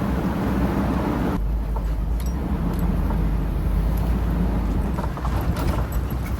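Steady low rumble of a vehicle driving, with road and wind noise and a few light clicks.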